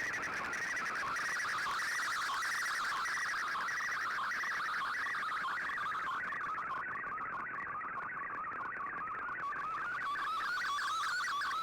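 Shortwave digital-mode data transmission received on a radio: a continuous, rapid warble of shifting tones packed into a narrow band, over a steady hiss of static.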